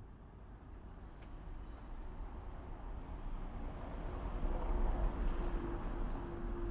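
Several short, high bird calls in the first couple of seconds, then the low rumble of a car growing louder as it approaches, with a steady engine hum from about four seconds in.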